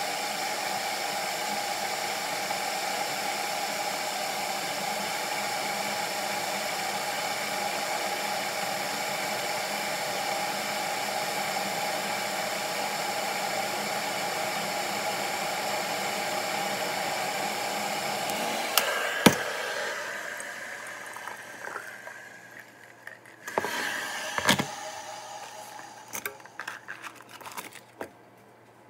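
Handheld hair dryer running steadily with a motor whine. It is switched off with a sharp click about two-thirds of the way through and winds down, followed by a few clicks and knocks as it is handled.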